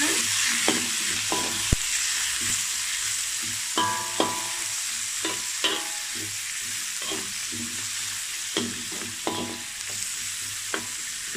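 Sliced onions sizzling in hot oil in a metal wok, with a metal spoon scraping and clinking against the pan a dozen or so times as they are stirred.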